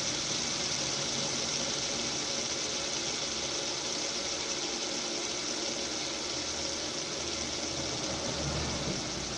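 Two fidget spinners spinning side by side in a spin-time contest, their ball bearings giving a steady, even whirring hiss.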